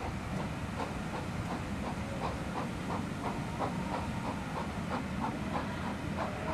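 Train running slowly past a station platform, heard from an open carriage window: a steady rumble and hiss with an even beat about three times a second.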